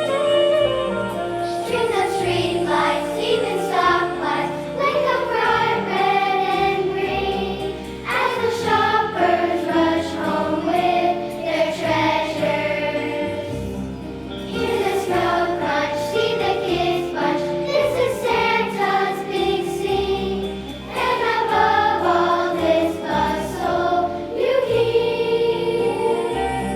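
A student choir singing a holiday song.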